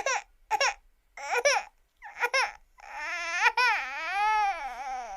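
A young woman's voice crying in a cartoon voice-acted sob: four short high sobs, then one long wavering wail that rises and falls in pitch.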